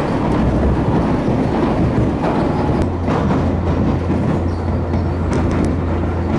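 Running noise of a moving local train heard from inside the passenger car: a steady rumble of wheels on rail with faint clicks. A low steady hum joins about three seconds in.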